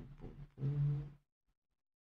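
A man's short wordless hum of thought, 'mmm', held at a steady pitch for about a second.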